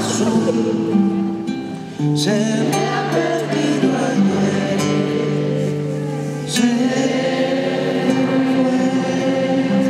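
Live performance on a nylon-string classical guitar, played slowly with firm strums about two seconds in and again near seven seconds, and a man singing over it through the concert sound system.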